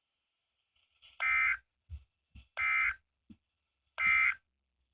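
Three short bursts of warbling digital data tones, about 1.4 seconds apart, from a NOAA Weather Radio broadcast. This is the SAME end-of-message code that closes the tornado warning.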